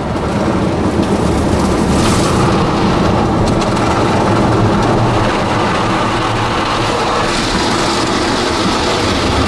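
Automatic rollover car wash at work, heard from inside the car's cabin: spinning brushes and water spray beating against the body and windows with a steady, loud rumble and hiss.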